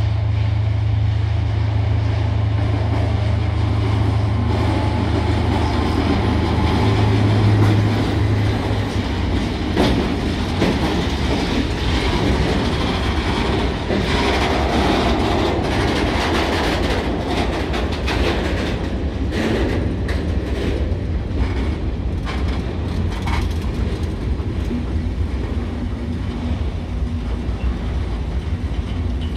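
Diesel works locomotive passing close with its engine running, then a long train of tank wagons rolling by, wheels clicking and clattering over the rail joints. The engine drone dominates for the first several seconds and then gives way to the wagons' rumble and clicks.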